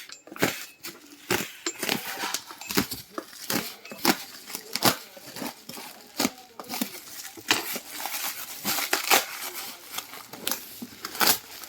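Packaging being handled and opened: irregular crinkling and rustling with many scattered sharp clicks and taps.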